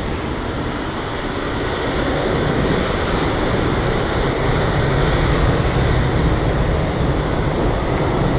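Boeing 777-300ER's twin GE90 turbofan engines at takeoff thrust as the airliner climbs away just after lift-off: steady jet noise that swells a little about two seconds in, its low rumble strengthening.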